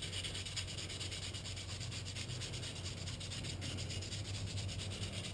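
180-grit sandpaper rubbed in quick, even back-and-forth strokes over a motorcycle's rear drum-brake shoe lining, scuffing off the shiny glaze left by riding the rear brake down a long steep hill.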